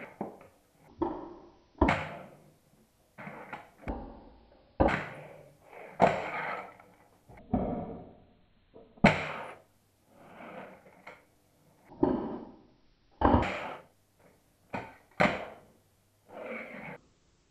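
A handboard clacking down onto a kitchen worktop again and again, its deck and hard wheels hitting and rolling briefly. There is a sharp hit about every second or so, each trailing off quickly.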